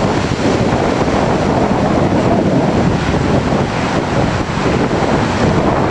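Strong windstorm wind blowing across the microphone: a loud, steady rush of noise.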